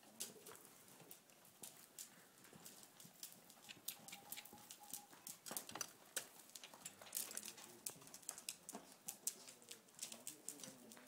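Faint, irregular clicks and soft thuds of a ridden young horse walking on soft arena footing: hoofbeats with the rattle and creak of saddle and bridle.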